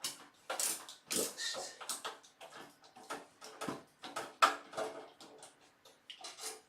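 Irregular run of short clicks and scrapes from a screwdriver and hands working a case fan out of a desktop PC's metal case, one sharper knock about four and a half seconds in.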